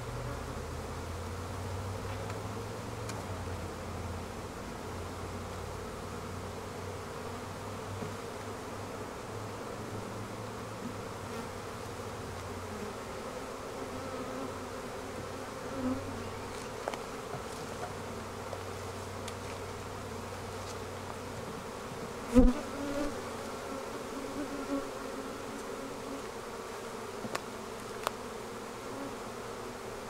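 Honeybee colony buzzing in a steady hum around an opened hive, with a few soft knocks and one sharp knock about two-thirds of the way through.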